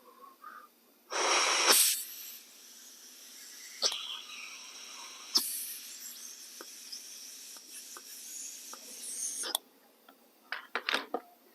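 Air blown by mouth through a new air filter base with its choke butterfly closed: a loud breathy burst about a second in, then a long, quieter, steady hiss for about eight seconds. A few sharp taps of the part being handled come near the end.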